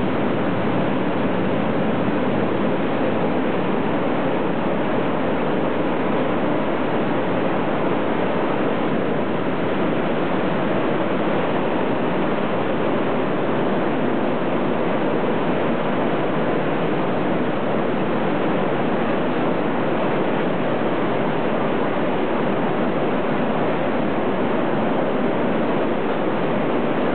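Fire-ring burners running around a locomotive boiler course with a steady rushing noise that does not change, heating the shell so it expands.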